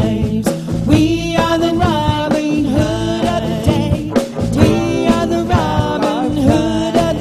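A song playing: a singing voice over band backing with a steady drum beat.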